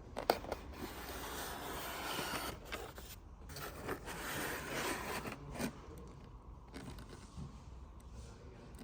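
Handling noises: irregular scraping and rubbing, with a sharp click about a third of a second in.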